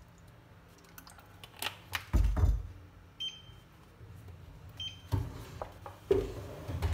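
Kitchen handling sounds: a few dull knocks and thumps, the loudest about two seconds in, as cooking oil is poured into a nonstick frying pan on an induction cooktop. Two short electronic beeps from the cooktop's touch controls, a little over three seconds in and again about a second and a half later.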